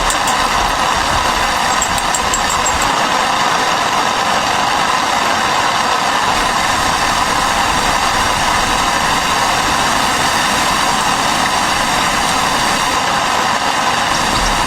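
Heavy rain and wind making a steady, loud rushing roar with no let-up.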